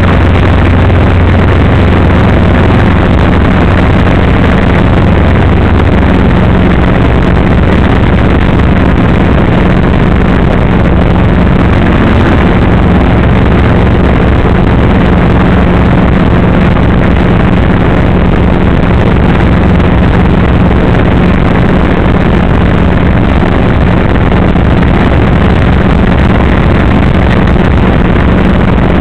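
Light helicopter's engine and rotor running at takeoff power, heard loud and steady from inside the cockpit as it lifts off and climbs. A deeper part of the hum fades about six seconds in, leaving a steady hum over dense rushing noise.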